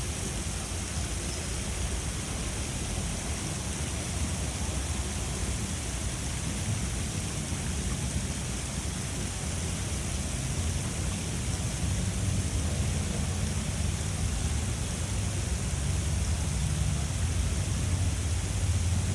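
Fountain water splashing in a steady rush, with a low rumble underneath that grows a little louder in the second half.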